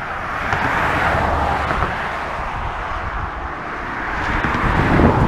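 Road traffic passing close by: a hiss of tyres with a low engine rumble, swelling about a second in and again near the end.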